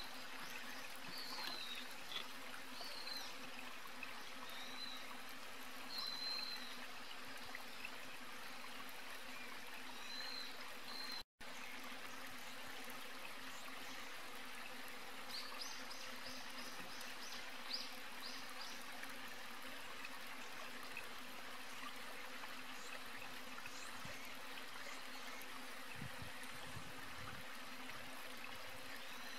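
Faint outdoor ambience: a steady hiss with short high chirps scattered through the first half and a brief rapid high trill a little past halfway. The sound cuts out for a moment just before halfway.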